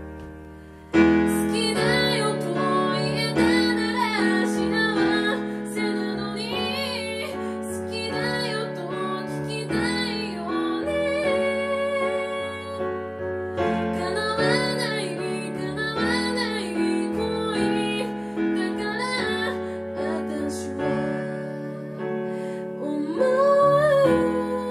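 A woman singing with her own piano-voiced electronic keyboard accompaniment, performed live. The keyboard chord fades alone for about a second before the voice comes in over it.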